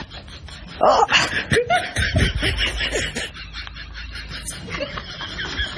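Snickering laughter: a run of short, quick giggles that fades out over the second half.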